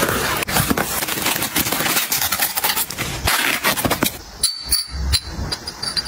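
Packing tape being peeled and torn off a cardboard parcel, with crackling and rustling of tape and cardboard. About four and a half seconds in come a few sharp clinks of crystal glass, each with a brief high ring.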